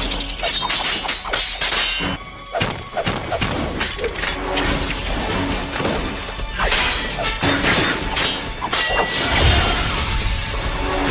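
Anime sword-fight sound effects: a rapid run of blade clashes, hits and whooshes over a background music score.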